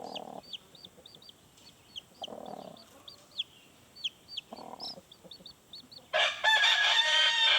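Chicks peeping in a steady run of short, high chirps, with a soft low cluck from the mother hen about every two seconds. About six seconds in, a much louder, drawn-out adult chicken call starts and carries on.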